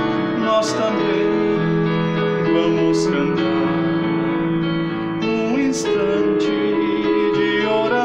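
Electronic keyboard playing sustained chords of a slow hymn, with a man singing the melody over it.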